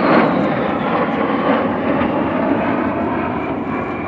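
A pair of Sukhoi Su-22 fighter-bombers passing overhead: loud jet engine noise with a faint whine sliding slowly down in pitch, easing off as the jets fly away.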